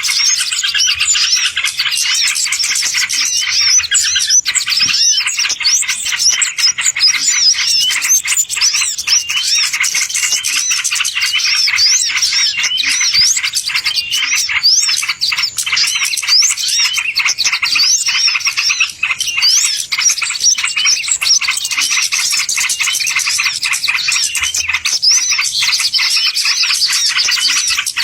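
Dense, unbroken chorus of birds chirping and twittering in rapid, overlapping high calls: a bird-lure recording of the kind played to draw wild birds in.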